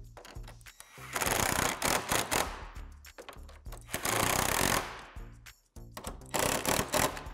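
Cordless power driver with a socket bit running in three bursts of about a second each, driving hex-head bolts into the steel frame rail of a door, over background music.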